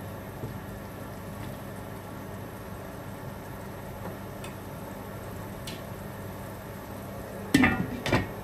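A pot of onion, tomato and spice masala cooking over medium flame, with a steady low sizzle and a few faint pops. Near the end come two sharp clattering knocks, about half a second apart.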